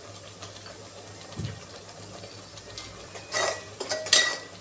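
Metal spoon scraping and clinking against the side of a metal pot, stirring spice powders into oil and ground masala paste. The stirring starts about three seconds in, after a quieter stretch with one soft thump.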